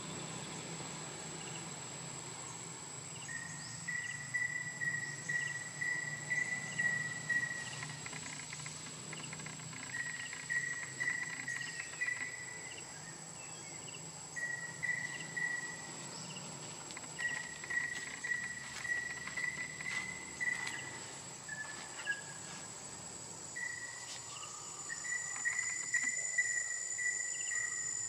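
Insects calling outdoors: a steady high-pitched whine with runs of rapid, even chirping trills that start a few seconds in and repeat with short pauses.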